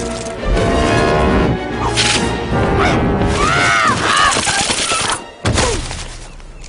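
Pipe organ music over cartoon fight sound effects: thuds and crashes, with arched, rising-and-falling cries of a gull in the middle. Everything drops out for a moment about five and a half seconds in, then a last hit follows.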